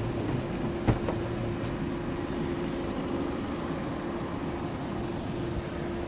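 Steady mechanical hum with one constant tone over a low rumble, and a single sharp knock about a second in.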